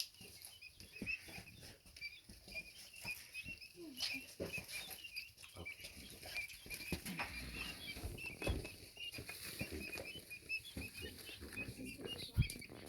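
Guinea keets peeping, many short high chirps overlapping, with scattered taps and scratches of the chicks moving and pecking in their brooder box and one louder thump near the end.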